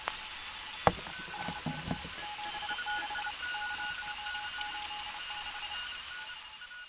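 Electronic outro sound of many overlapping beeping tones at several pitches, sounding in short and long dashes, with a sharp click about a second in.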